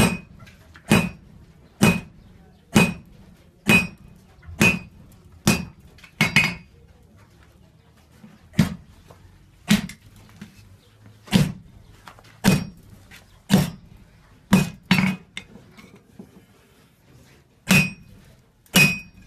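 Sledgehammer blows on red-hot iron on an anvil during hand forging, about one strike a second. Each blow rings briefly. The striking pauses for a couple of seconds about a third of the way in and again near the end.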